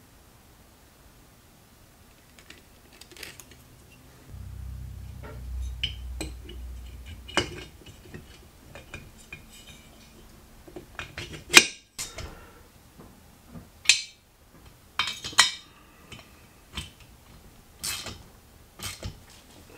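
Metal clinks and clatter of engine parts and hand tools being handled on a workbench, as a cylinder head is fitted onto a two-stroke moped cylinder and wrenches are picked up, with the sharpest knocks about halfway through. A low rumble runs from about four to seven seconds in.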